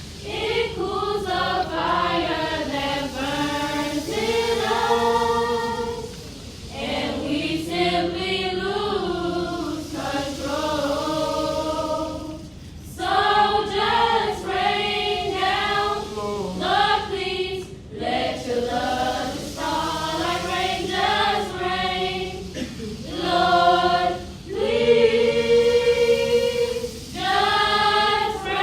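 Children's choir singing a song in unison, phrases held and broken by short breaths.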